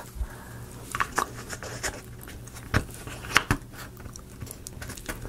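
Laser-cut plywood model pieces being pressed together by hand: a few short, light clicks and taps as a wooden disc is pushed down over the pegs of a larger wooden disc, over a steady low hum.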